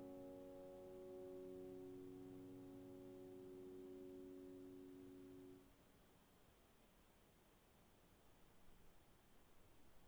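Faint crickets chirping, about three chirps a second, over a steady high insect hum. A soft sustained chord of low tones fades out about six seconds in.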